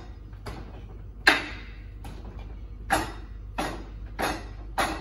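Wing Chun wooden dummy (mook jong) struck by a person's arms: about five sharp wooden clacks at uneven intervals, the loudest a little over a second in.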